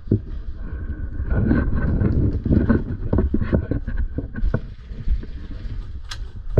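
Low rumble on the microphone with many scattered clicks and knocks, denser for a stretch about a second in, and one sharp click near the end.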